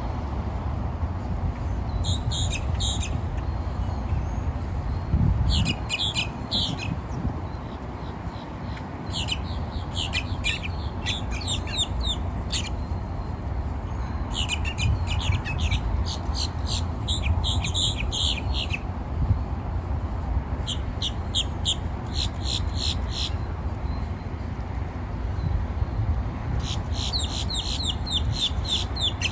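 Common grackle calling in repeated bouts of rapid, high, clicky squeaking notes, over a steady low rumble.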